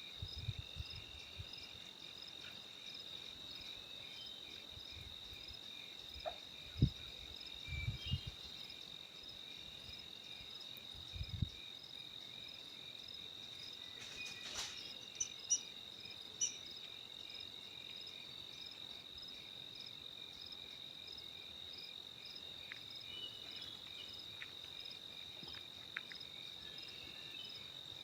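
Insects calling steadily: a continuous high trill with an even pulsed chirping around it, typical of a cricket chorus. A few dull low thumps come in the first dozen seconds, and a few sharp clicks come about halfway through.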